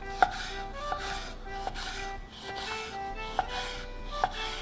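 Kitchen knife slicing raw abalone on an end-grain wooden cutting board, the blade tapping the board several times, over light background music of short plucked notes.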